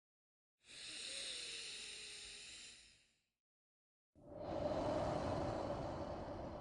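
A person's slow, paced breathing, kept up as a guide to breathe along with: a long, thin, hissy breath, then after a second of silence a louder, fuller breath that is still going at the end.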